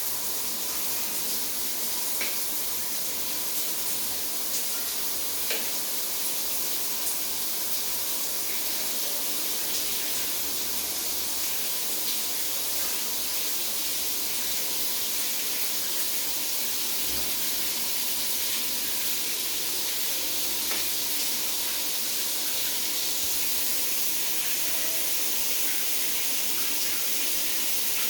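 Ceiling-mounted shower head running: a steady hiss of falling water spray, with a few faint drip-like ticks.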